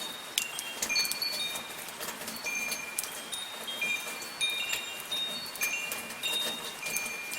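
Wind chimes ringing irregularly, many bright metallic notes overlapping, over the steady hiss of soft rain with scattered drips.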